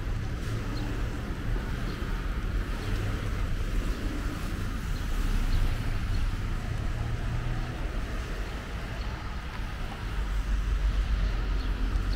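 Street traffic: cars passing on a wet road, a steady hiss of tyres over a low engine rumble, swelling near the end as a vehicle comes by close.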